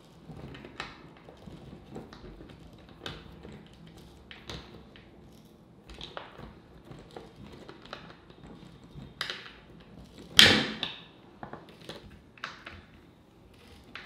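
Skateboard parts being handled on a tabletop: scattered clicks and light knocks of the truck, wheels and hardware against the deck and table, with one louder knock a little past two-thirds of the way through.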